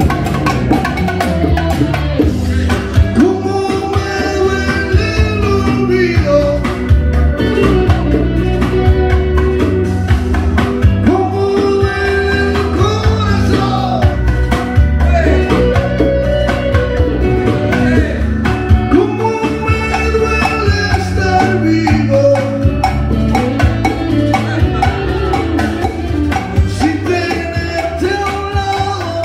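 A live band playing a song with a singer over bass, guitar and a steady percussive beat.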